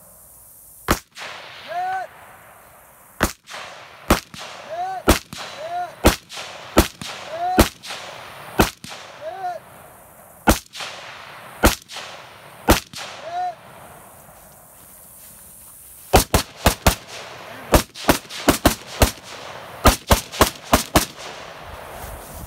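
Gunshots fired one at a time, about one a second, with many followed by a short ringing ping from a hit steel target. After a lull of about two seconds, a faster string of shots, several a second, in short bursts.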